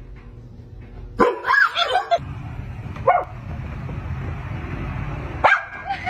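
Dogs barking: a drawn-out, wavering bark about a second in, then short single barks near the middle and again near the end, over steady background noise.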